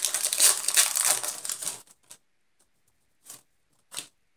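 Foil Pokémon booster pack wrapper crinkling as it is opened and handled, for nearly two seconds. It then falls quiet, broken by three short crinkles as the cards are slid out of the pack.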